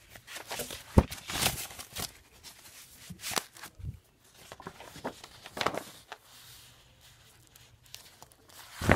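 Rustling and handling of paper and plastic folder sleeves in irregular bursts, with a sharp knock about a second in and a louder rustle near the end.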